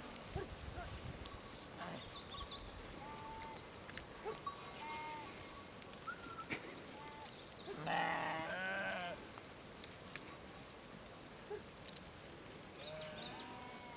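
A flock of sheep bleating on the move, one loud wavering bleat about eight seconds in among fainter, scattered calls.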